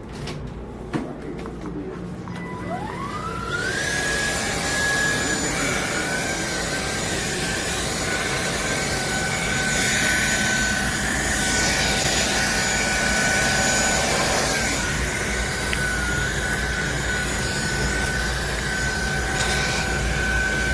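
INTETURE cordless stick vacuum motor spinning up with a rising whine a few seconds in, then running steadily with a high whine over rushing air.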